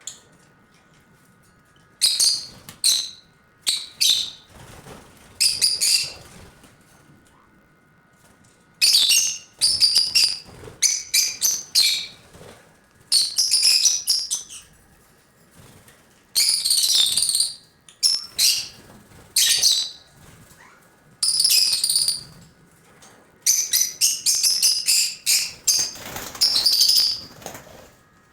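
Lovebirds calling in shrill, high-pitched chirps, loud bursts coming in clusters with short pauses between them.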